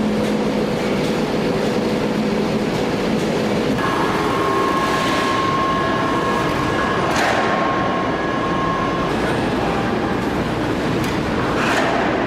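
Heavy forge-shop machinery running steadily while the hot ingot is moved to the press, with steady whining tones that shift about four seconds in. There is a sharp metallic clank about seven seconds in and another near the end.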